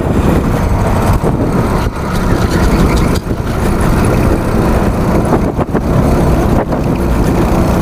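Go-kart's small engine running hard, close to the onboard microphone, with a few short dips in level.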